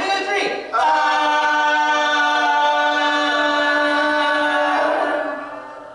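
Volunteers' voices holding one long, loud yelled note at a steady pitch, then fading away to quiet near the end as they lower their volume on cue.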